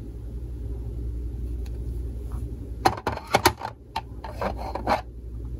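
Hard plastic coin slabs being handled and swapped at a storage box: a quick cluster of sharp clicks and scraping rubs about halfway through, lasting around two seconds.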